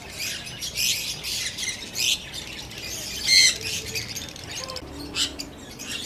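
Many caged lovebirds squawking and chirping in a dense run of short, shrill calls, loudest a little past the middle.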